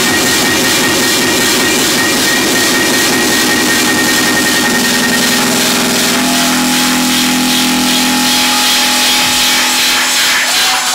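Hard techno played loud over a club sound system, in a breakdown section: a dense noisy wash with held synth tones, and a low chord coming in about halfway, with little deep bass.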